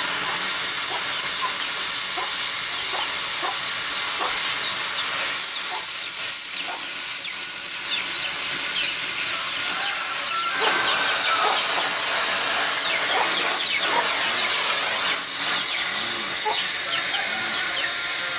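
LPG and oxygen cutting torch hissing steadily while it cuts through an iron pipe, with scattered crackles from the molten metal.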